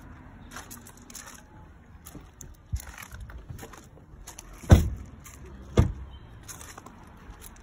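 Footsteps crunching on gravel, then two heavy thumps about a second apart near the middle: the doors of a Land Rover Discovery being shut.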